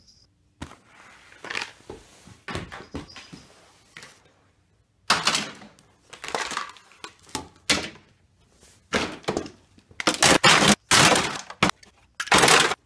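Toy trains and track being handled, making a string of clattering knocks and cracks. There is a short lull about four seconds in, and the loudest clatter comes in the last three seconds.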